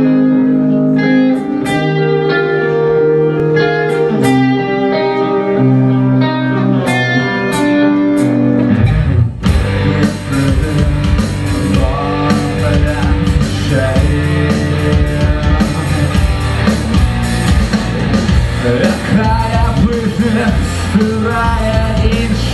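Rock band playing live with electric guitars, bass and drums: an intro of held, ringing guitar chords for about nine seconds, then the drums and bass come in and the full band plays on.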